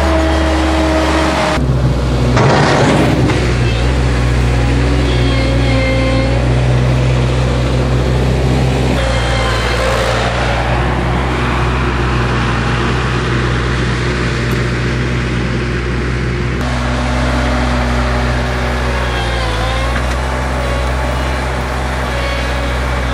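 Avant 700-series compact loader's diesel engine running steadily under load while it pushes and lifts snow, its tone shifting abruptly a few times.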